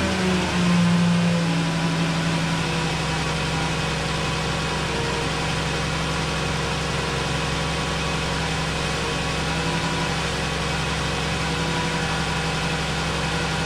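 2011 Dodge Grand Caravan's 3.6L Pentastar V6 idling steadily just after starting, dropping slightly to an even idle about half a second in. It is the first run after new spark plugs and coils, and it sounds smooth enough that the owner says "so far, so good."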